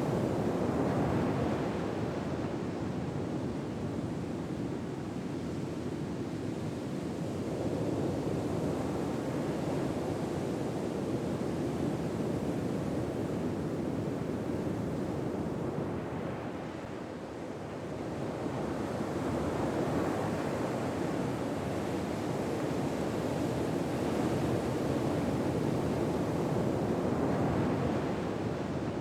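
Ocean waves washing in a soft, steady rush that slowly swells and eases, with a brief lull a little past halfway.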